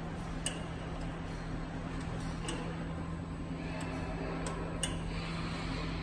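Paper food-box forming machine humming steadily at rest, with a few sharp metallic clicks at irregular intervals as its mechanism is adjusted by hand during setup.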